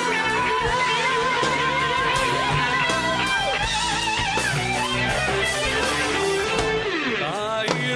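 Live band music: a lead electric guitar plays bending, wavering notes over drums and bass.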